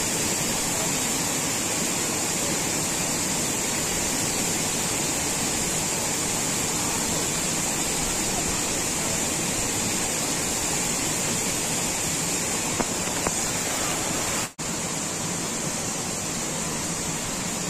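Steady rushing noise with a strong high hiss, unbroken except for a brief dropout about fourteen and a half seconds in.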